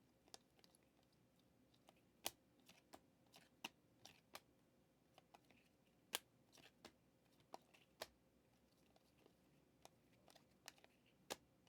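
Faint, irregular clicks and light snaps of trading cards being handled and flipped through a pack, about two a second.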